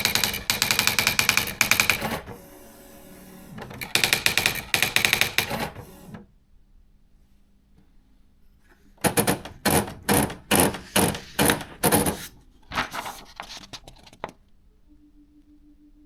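Olivetti Praxis 100 electronic daisy-wheel typewriter printing: two fast runs of rapid strikes, then after a pause a slower run of about ten separate strikes and a few more before it stops, leaving a faint hum.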